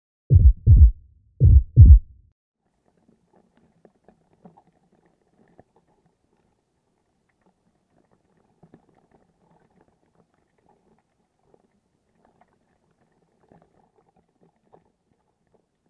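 Two pairs of loud, deep thumps in the first two seconds, like a heartbeat's double beat, then near silence with faint scattered crackles.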